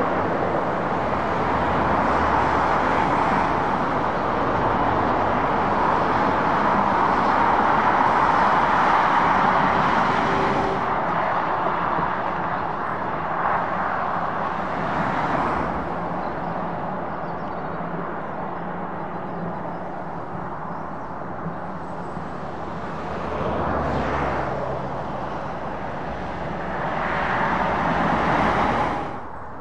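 Passing road traffic on a dual carriageway: tyre and engine noise of lorries and cars going by. The loudest pass, swelling over the first ten seconds, fits the Scania R520's V8 truck engine. Smaller swells follow as other lorries and cars pass, and the sound drops suddenly near the end.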